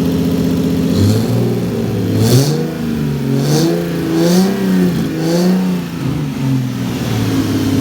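Turbocharged Lexus IS300's 2JZ straight-six idling, then revved in several quick blips that rise and fall, with a short hiss around several of the blips, before settling back to idle. The engine has an exhaust leak somewhere around the turbo or downpipe.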